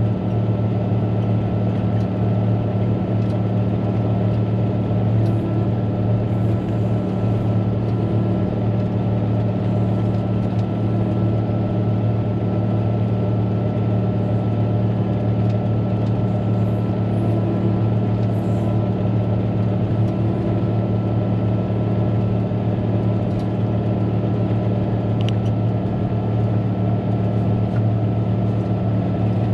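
Cat motor grader's diesel engine running steadily as the machine travels along a dirt road, a constant low drone with a faint steady high whine above it.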